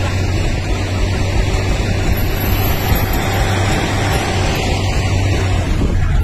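Vehicle engine running steadily, heard from inside the cab as a constant low hum with road noise; the sound shifts slightly near the end.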